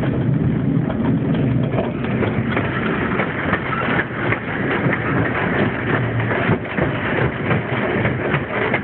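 Hythe Pier Railway's small electric train running along the pier, heard from inside a carriage: a steady rumble with a continual irregular clatter of wheels clicking and knocking over the rails.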